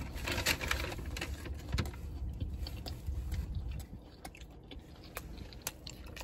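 Close handling noise: irregular soft clicks and rustles right at the microphone, over a low rumble.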